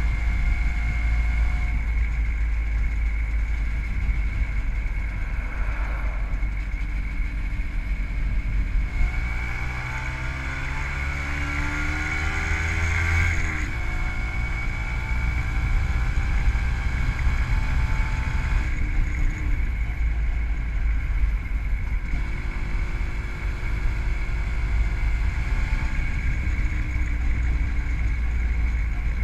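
WSK 125 two-stroke single-cylinder motorcycle engine, fitted with a Dellorto PHBG carburettor and CDI ignition, running on the move with heavy wind rumble on the microphone. About nine seconds in, the engine note climbs steadily for several seconds under acceleration, then drops suddenly at a gear change and settles back to steady running.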